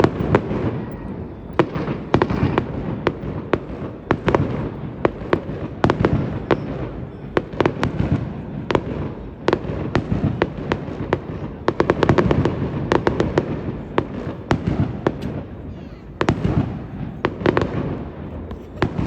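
Fireworks display: a steady run of sharp, irregular bangs from bursting shells over a low rumble, with the bangs coming thickest about twelve seconds in.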